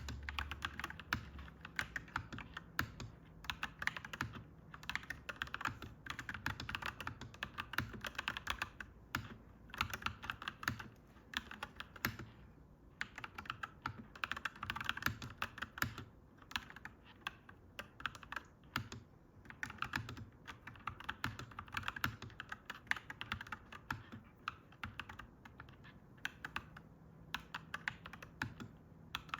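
Clacky mechanical keyboard being typed on steadily: fast runs of key clicks with short pauses between them.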